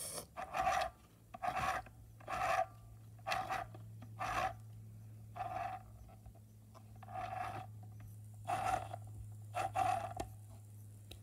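A series of short rasping scrapes, roughly one a second and slightly irregular, over a steady low hum.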